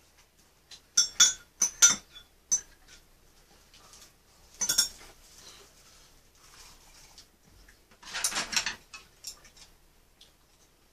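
A metal spoon clinking sharply against a small bowl several times about a second in, then softer clatter and scraping of spoon and chopsticks against bowls and the pan, with a longer rough scrape near the end.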